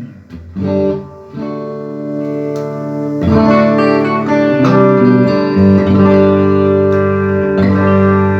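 Electric guitar played through a Mesa Boogie JP-2C tube amp, sounding sustained ringing chords. A louder chord is struck about three seconds in, followed by further chord changes. The amp is working after a repair to a broken slider pot.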